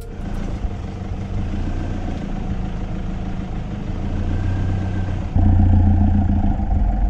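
Vehicle engine running as it drives along an unpaved dirt track, a steady low drone that jumps louder about five seconds in.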